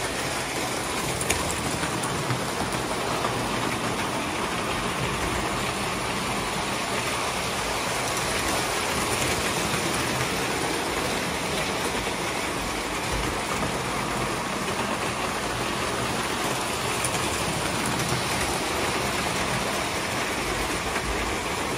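Vintage toy trains running on metal track: a steady whirring rattle of wheels on the rails and the locomotive motors, with one sharp click about a second in.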